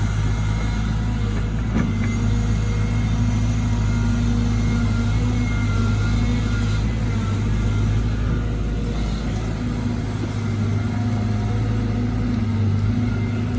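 Diesel engine of a Caterpillar 313GC excavator running steadily at working speed, with a faint tick about two seconds in.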